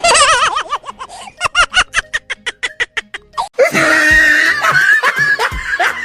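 Edited comedy sound effects: a sudden loud warbling tone, then a quick run of evenly spaced clicks, then a loud dense burst with laughter.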